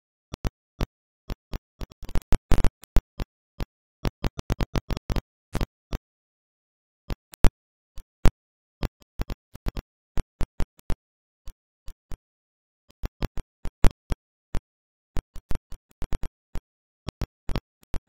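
Irregular sharp clicks and pops with dead silence between them, bunched together about two and four seconds in.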